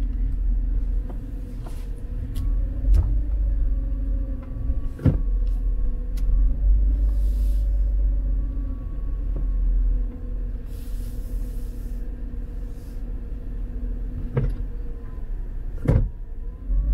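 Car driving slowly, heard from inside the cabin: a steady low rumble with a faint hum that rises and falls slightly in pitch. A few sharp knocks sound, one about five seconds in and two more near the end.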